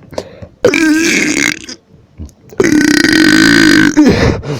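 A person burping loudly twice: a shorter burp about a second in, then a longer drawn-out one lasting well over a second. The burper puts these burps down to a bad combination of snacks.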